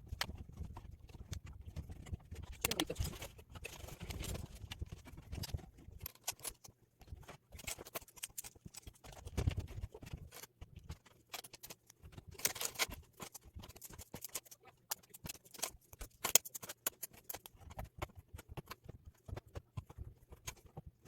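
Irregular small clicks and taps of plastic Mega Construx building bricks being handled and pressed together.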